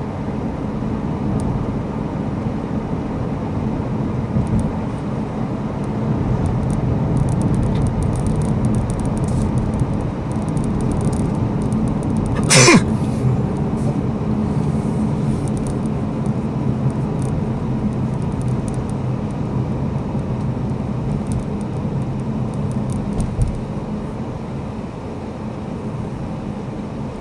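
Steady engine and tyre noise inside the cabin of a moving Mazda CX-3, with a brief sharp knock about halfway through.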